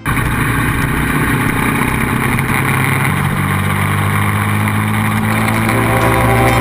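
Motorcycle engine running steadily at road speed, with heavy wind rush on a bike-mounted camera's microphone.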